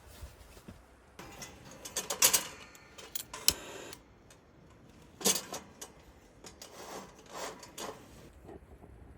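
Clicks, taps and rustling of objects being handled by hand, in irregular bursts: a busy cluster from about a second in to four seconds, a sharp one just after five seconds, and softer ones near the end.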